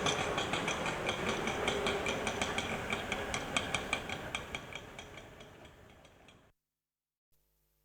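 Auto rickshaw engine running with a quick, rattling clatter of about four or five ticks a second, fading out over about five seconds.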